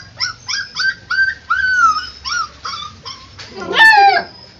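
Puppy whimpering: a quick string of short high whines that fall in pitch, about three a second, then one louder, longer whine that slides down in pitch near the end.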